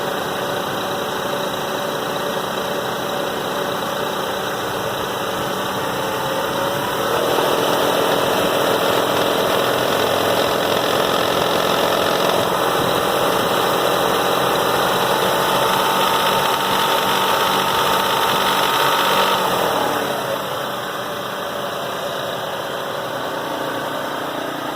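1997 Toyota Avalon's 3.0-litre V6 running with a rattling, clattering noise; it gets louder about seven seconds in, as if held at higher revs, and settles back to idle near the twenty-second mark.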